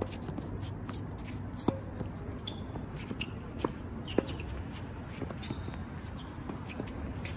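Tennis ball being struck and bouncing during a doubles rally on a hard court: a few sharp pocks spaced a second or two apart, with two in quick succession about four seconds in, over shoes scuffing and squeaking on the court surface.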